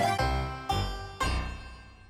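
Cartoon title music ending on three struck keyboard chords that ring out and fade away.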